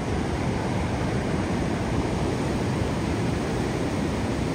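Ocean surf breaking and washing up a sandy beach: a steady rushing roar of waves with no let-up.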